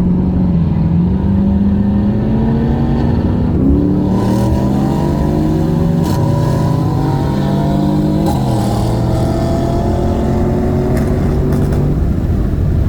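Holden VX Commodore SS's 5.7-litre LS1 V8 accelerating hard at wide-open throttle. The engine note climbs steadily and drops back at upshifts about six and eight seconds in.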